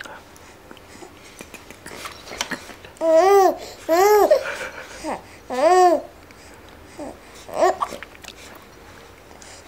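Young baby cooing and laughing: three loud calls that rise and fall in pitch about three to six seconds in, followed by a few shorter, softer coos.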